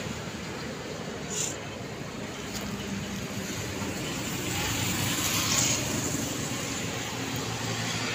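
Road traffic noise, with a vehicle going past about five seconds in.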